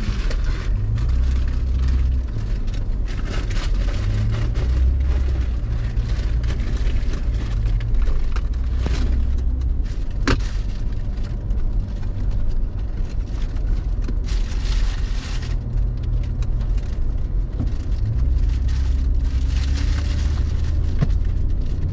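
A car on the move: a low, steady rumble of engine and road noise, with one sharp click about ten seconds in.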